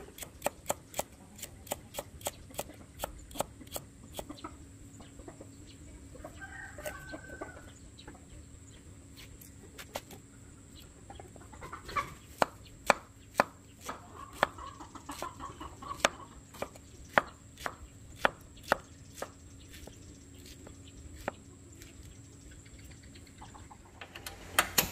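Kitchen knife slicing carrots on a wooden chopping board, a run of quick sharp knocks that thins out for a few seconds before picking up again. Hens cluck in the background, about a quarter of the way in and again around the middle.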